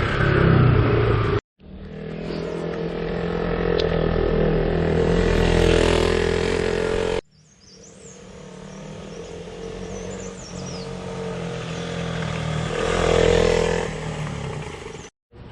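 KTM RC motorcycle engine running under way, heard in three edited clips that cut off abruptly. Within each clip the sound grows louder as the bike pulls and gains speed.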